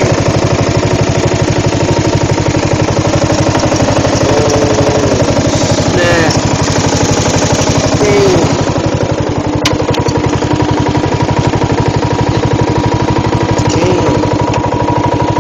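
Craftsman riding lawn mower engine running steadily while the mower is driven over rough ground, with a rapid, even firing beat.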